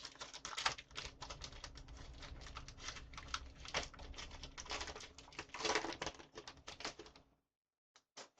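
Plastic blister packaging and a foil card pack crackling and crinkling as they are torn open by hand, a dense run of small clicks that stops about seven seconds in, followed by a few single clicks.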